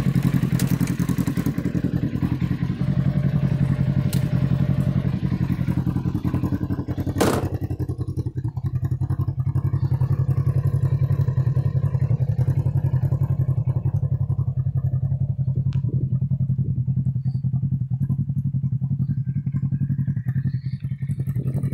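Polaris RZR XP 1000's twin-cylinder engine idling steadily, with one sharp knock about seven seconds in.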